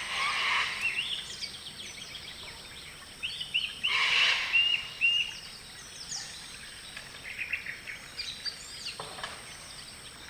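Several birds chirping and calling over a steady background hiss, with a run of clear whistled notes about four seconds in and quicker chirp series near the end.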